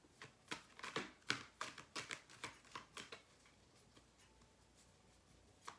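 Tarot cards being shuffled and handled, faint: a quick run of short card flicks and slaps for about three seconds, then a quiet pause with a single tap near the end.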